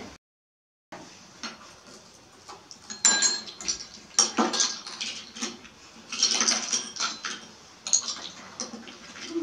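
Metal spoons clinking and scraping against ceramic bowls in irregular taps, some louder than others, after about a second of silence.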